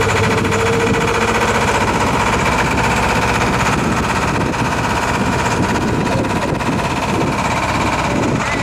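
Sailboat's engine running steadily under way, a fast even mechanical chugging.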